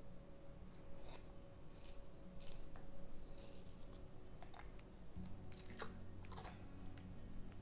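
Caran d'Ache Neocolor II water-soluble wax crayon being turned in the larger hole of a pencil sharpener: a series of short, irregular crunchy scraping strokes as the blade shaves the crayon.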